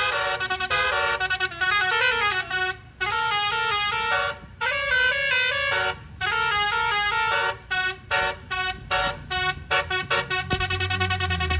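Bus telolet horn (multi-trumpet 'basuri' horn) playing a quick tune of stepped notes with short breaks, then speeding into a fast run of short toots. A low rumble comes in near the end.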